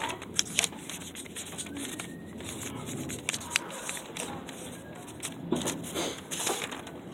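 Scattered rustles, scrapes and light clicks of handling, with no steady machine sound.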